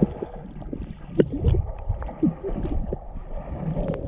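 Lake water splashing and sloshing as people swim, with irregular low rumble and scattered small knocks, and faint voices in the background.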